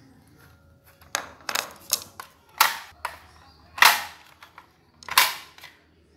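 Plastic case of a K-Vision Bromo C2000 set-top decoder being pried open with a screwdriver, giving a series of about six sharp snaps as the lid's clips come loose, with handling clatter between them.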